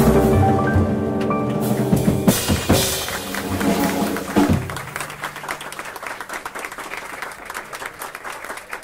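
A jazz quartet of soprano saxophone, piano, double bass and drums holds a closing chord over drum hits, ending about halfway through. Audience applause follows.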